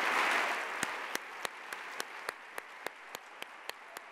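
Audience applause dying away, with a steady run of single sharp claps, about three or four a second, carrying on as the rest fades.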